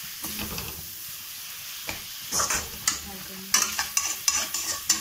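Metal spatula scraping and stirring onions and masala paste around a metal kadhai, over a soft sizzle of frying on low flame. The scrapes come irregularly, more often in the second half.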